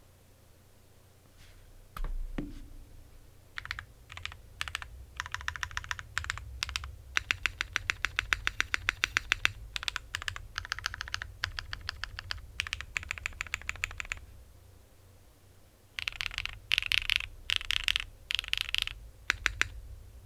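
Custom mechanical keyboard being typed on: lubed Tecsee Blue Balloon switches on a POM plate, with ePBT keycaps in an aluminium case. Quick runs of poppy keystrokes follow a single heavier, chunky thock about two seconds in, and there are louder bursts near the end.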